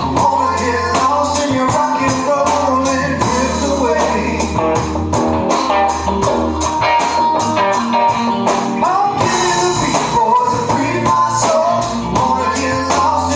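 Small rock band playing live: electric guitar over a drum kit keeping a steady beat.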